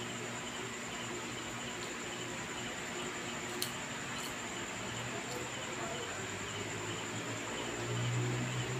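Steady room background noise: hiss with a low hum and a thin, steady high-pitched whine, broken by a few faint clicks. The low hum grows louder near the end.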